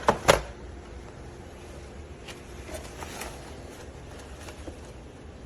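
Two sharp clicks close together, then a few faint taps over a low steady background: handling noise.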